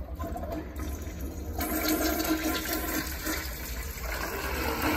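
Flushometer toilet flushing: rushing, swirling water that grows louder about a second and a half in as the bowl drains.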